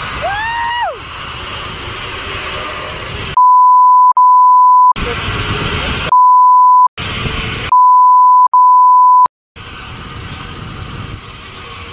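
Censor bleeps: a steady, mid-pitched pure beep replaces the audio in three bursts between about three and a half and nine seconds in. Between and around the bursts is loud rushing wind noise on the microphone.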